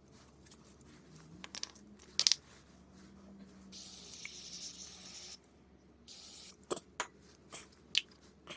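Aerosol can of carburetor cleaner spraying in two hissing bursts: a longer one of under two seconds about four seconds in, and a short one about two seconds later. Light clicks and taps of small metal carburetor parts being handled come before and after.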